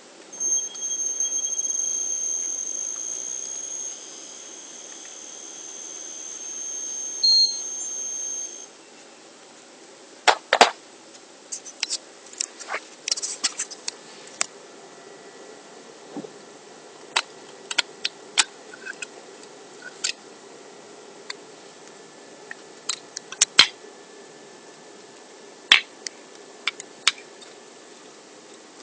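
3D-printed brushless DC motor running with a steady high-pitched whine for about eight seconds, dropping in level partway through, rising again and cutting off abruptly. Scattered sharp clicks and taps follow.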